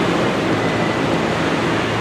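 Large farm tractors' diesel engines running steadily as they drive slowly in a column, over an even hiss from the wet road and rain.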